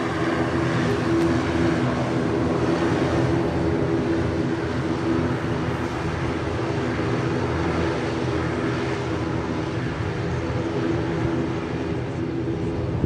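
Airplane engines running steadily as the aircraft taxis on the ground, a constant drone with a hum and a hiss.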